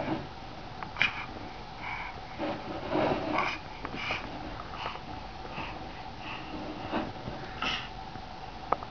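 A baby making short breathy squeals and huffs, on and off, with a sharp tap about a second in and a sharp click near the end.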